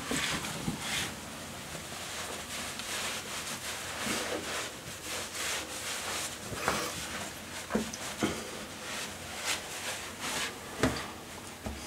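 A towel rubbing and swishing over a face as it is dried, after wet hands splash at the sink, with several light knocks in the second half, the loudest near the end.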